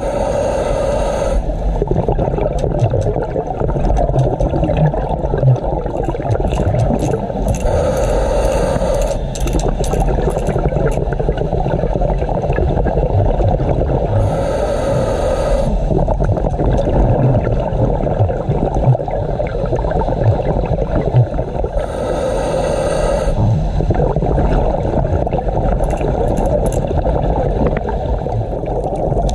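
Scuba diver breathing through a regulator underwater: a bubbling rush of exhaled bubbles about every seven seconds, over a steady low rumble of water against the camera housing.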